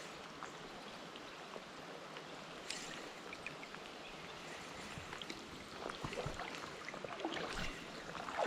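Steady hiss of flowing creek water, with scattered light clicks and a few small splashes and knocks in the last few seconds.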